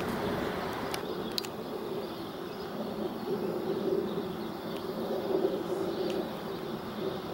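SEPTA GE Silverliner IV electric multiple-unit train approaching, giving a steady buzzing hum, with a couple of faint clicks about a second in.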